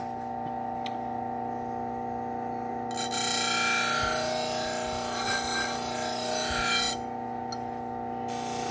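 Powered leather honing wheel spinning with a steady hum, and a knife edge rubbing against the compound-loaded leather in two passes, about three seconds in and again near the end. This is the final honing stage, refining the edge after the belts.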